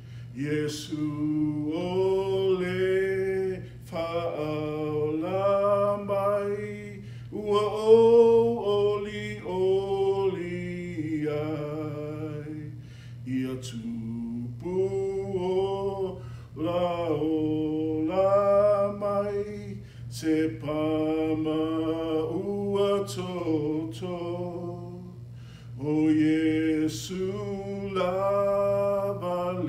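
A man singing a Samoan hymn solo, in long held notes with short breaks between lines, over a steady low hum.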